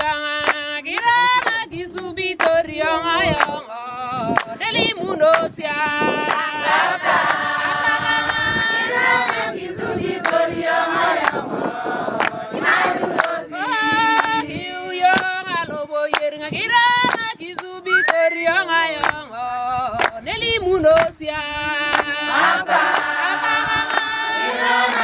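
A choir of voices singing together in harmony, over a sharp beat about twice a second.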